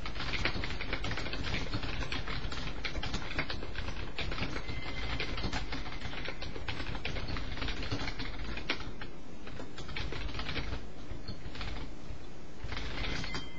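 Rapid, irregular clicking, many small clicks a second, over a steady low hiss.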